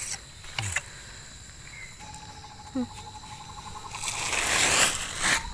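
A steady, high trilling call starts about two seconds in and lasts about two seconds. Near the end comes a loud rustle, like dry leaf litter being brushed. A couple of sharp clicks come just before the trill.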